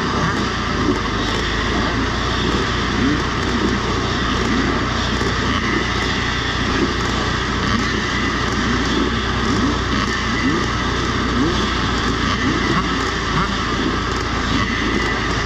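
A whole start line of vintage motocross bikes running together: a dense, steady engine din with throttles blipped over and over, short rising revs from many bikes at once.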